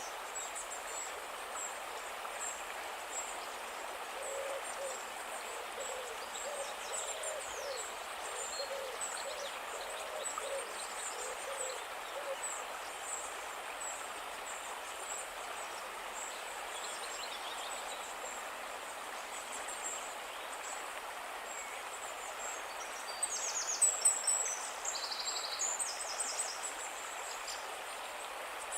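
Calm river water flowing steadily, with birds chirping high above it. From about four to twelve seconds in, a low call repeats about one and a half times a second, and a burst of louder bird song near the end is the loudest moment.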